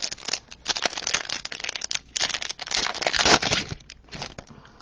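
Crinkling and crackling of a foil card-pack wrapper and cards being handled as the pack is emptied, a quick run of sharp crackles that gets busiest and loudest from about two to three and a half seconds in.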